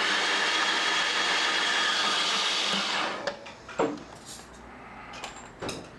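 BMW R1100RSL boxer-twin engine cranked by its electric starter with the spark plugs out, spinning over fast and evenly for about three seconds, then stopping. It turns over just fine on a fresh battery, so the click-only no-start came from the old, weak battery.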